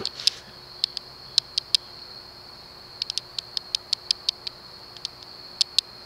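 Broan (CEC) 42-inch ceiling fan with a cast-iron motor running quietly in reverse, its bearings free of hiss or grind: a faint steady hum under light, irregular ticks. A steady high-pitched trill runs throughout.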